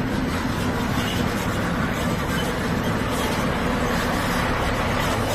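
Concrete mixer truck's diesel engine running steadily, a low even hum with a broad rushing noise over it.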